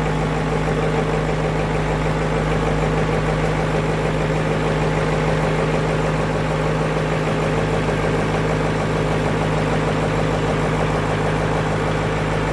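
Caterpillar 3208 V8 diesel marine engine idling steadily and loudly, run just after an oil change to fill the new oil filters.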